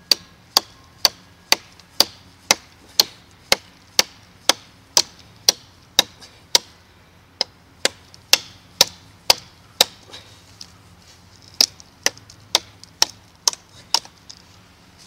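Elmax-steel knife blade chopping into a wet, live branch about 5 cm thick: a long run of sharp blows, about two a second, with a short pause a little past halfway.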